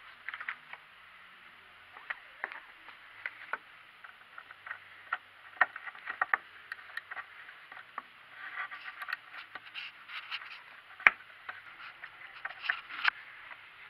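Scattered clicks, knocks and scrapes of tools and gloved hands working among engine-bay parts under a car, over a steady faint hiss. One sharp knock a little past two-thirds through is the loudest.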